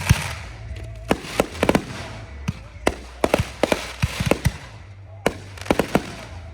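Backyard consumer fireworks going off: a rapid, irregular string of about twenty sharp bangs and cracks, some in quick clusters, over a steady hiss.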